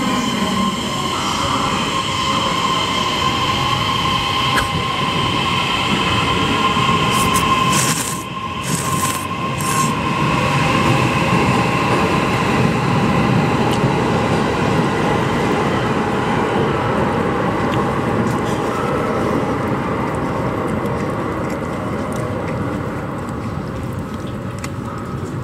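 Train running at the station platform, loud and steady throughout, with a held high whine over the wheel noise.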